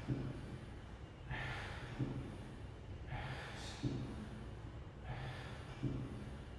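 A man breathing hard in time with lat pulldown reps on a cable weight machine. A loud rush of breath comes about every two seconds, each followed by a short low thud.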